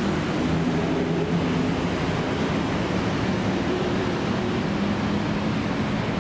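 Steady drone of city road traffic, a low hum with faint engine tones drifting slightly in pitch.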